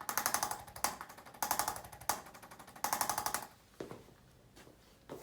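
Handheld percussive treatment device firing rapid taps, about ten a second, in several short bursts. It stops about three and a half seconds in, and a few soft knocks follow.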